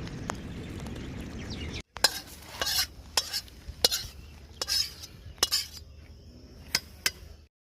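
Prawn heads sizzling in hot oil in a pan, then a metal spatula scraping and knocking against the pan about ten times as they are stirred.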